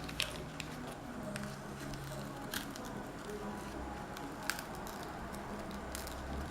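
Light scattered clicks and taps of tools prying at a tablet's glued-down digitizer glass, over a faint steady low hum.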